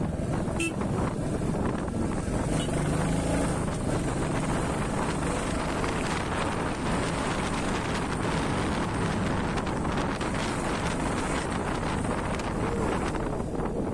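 Motorcycle engine running steadily while riding along, with wind rushing over the microphone.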